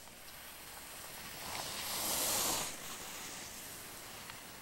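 Skis hissing and scraping across groomed snow as a skier passes close by, swelling to its loudest about two seconds in and fading as the skier moves away.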